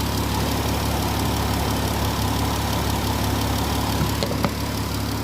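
An engine idling steadily with a low, even hum. Two light clicks come about four seconds in.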